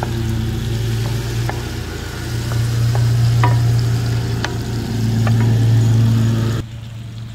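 Onions, peppers and tomatoes sizzling in an electric skillet while being stirred with a wooden spoon, the spoon tapping the pan now and then. A steady low hum that swells and fades runs underneath and cuts off about six and a half seconds in.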